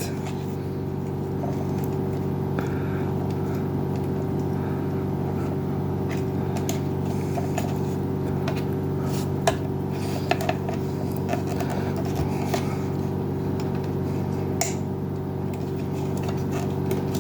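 A steady hum made of several fixed tones, with a scattering of light clicks and taps from hands working inside the opened plastic coffee maker.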